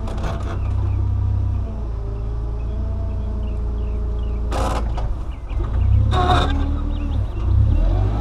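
Forklift running as it carries and lifts a pallet, with a low rumble and a hydraulic whine that slowly shifts in pitch. Two sharp clanks come about four and a half and six seconds in.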